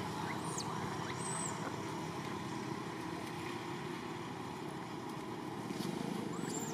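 Steady low background noise with a few faint, short high-pitched squeaks: one about half a second in, one at about a second and a half, and one near the end.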